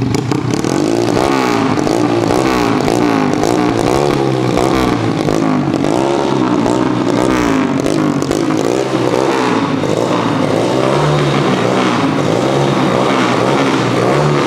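Underbone motorcycle's Daytona 140cc single-cylinder four-stroke engine running through a GL Racing aftermarket exhaust, revved up and down over and over with throttle blips, roughly once a second.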